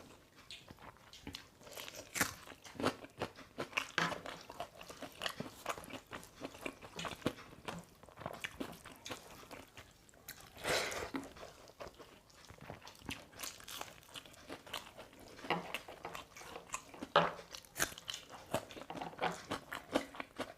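People chewing and crunching food at close range: irregular crisp crunches and wet mouth clicks of eating rice and dal with raw onion, with a few louder crunches about halfway through and near the end.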